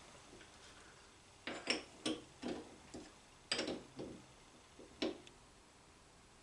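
Light metallic clinks and knocks, about eight in a few seconds starting about a second and a half in, from a steel workpiece and parallel being seated and settled in a lathe chuck.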